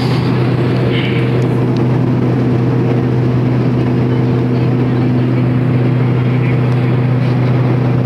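Turboprop airliner's engines and propellers running steadily in cruise, heard inside the cabin: a constant low hum with a couple of steady higher tones over a wash of engine and air noise.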